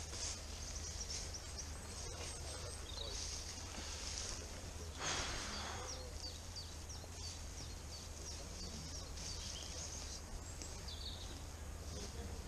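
Outdoor ambience: small birds chirping in short, high, repeated notes over a low steady rumble, with a brief rushing hiss about five seconds in.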